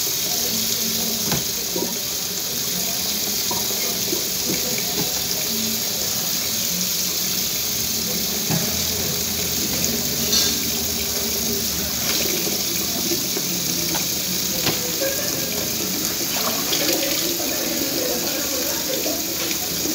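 Kitchen tap running steadily into a stainless steel sink, the stream splashing onto red grapes being rinsed, with a few light knocks from the handling in the second half.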